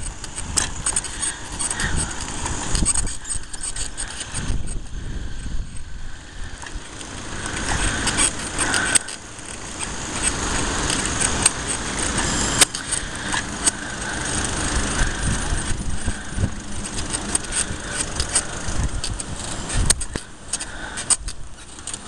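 Bicycle rolling along a concrete sidewalk, its frame and front basket rattling, with many small knocks as the wheels jolt over cracks and slab joints, over a steady low rumble.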